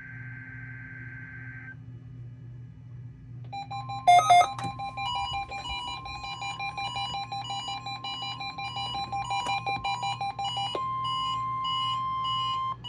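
NOAA Weather Radio weekly test. It opens with the tail of a SAME data burst's warbling tones. About four seconds in, the steady 1050 Hz warning alarm tone comes on, joined by a weather alert radio's rapid electronic beeping. The beeping stops near the end, and the alarm tone carries on alone until it cuts off.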